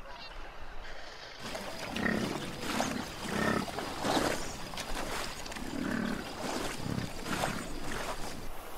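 American bison grunting in a series of short, low calls, several a second apart.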